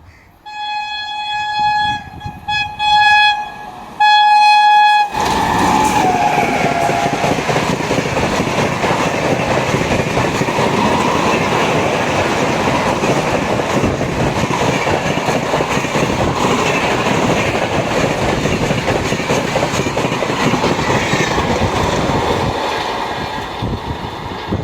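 Indian Railways train horn sounding a series of about four blasts, then the train passing close at speed with a loud steady rumble of wheels on rail. The horn drops in pitch as the locomotive goes by.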